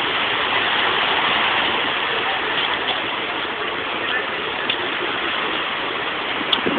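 Steady rushing noise of sea surf washing on the shore.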